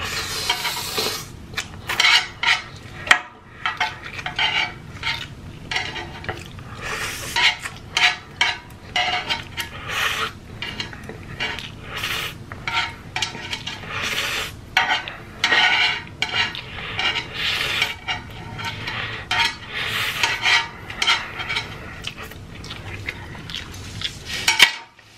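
Close-up eating noises: noodles slurped straight off a metal tray, with wooden chopsticks repeatedly clicking and scraping against the metal.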